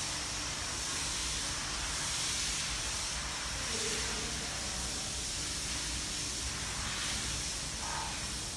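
Steady rush of air from the ventilation of an underground car park, an even hiss with no breaks.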